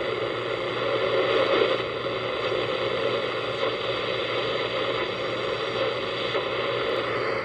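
Steady static and hiss from an alarm clock radio's small speaker, tuned to a weak AM station.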